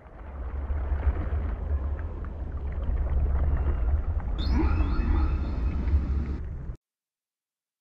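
Whale song laid over the film: a deep, steady rumble with a higher, wavering whale call from about four and a half seconds in, cutting off abruptly near the end.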